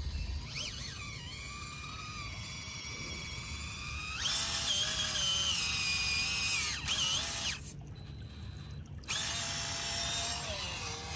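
Small electric motor and geared drivetrain of a 1/18-scale RC crawler truck whining, the pitch rising and falling as the throttle changes. The whine grows louder about four seconds in, drops away for about a second and a half near the end, then picks up again.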